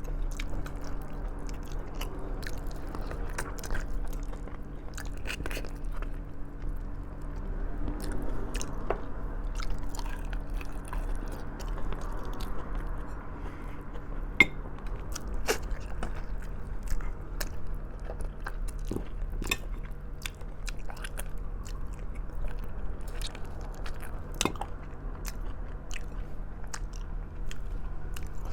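A person chewing and biting braised pork trotters close to the microphone, with many short wet clicks and crunches, over a steady low hum.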